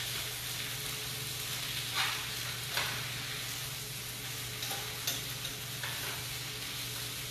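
Spinach and sun-dried tomatoes sautéing in oil in a hot skillet, sizzling steadily, with a few short scrapes of a utensil turning them about two and three seconds in and again near five seconds.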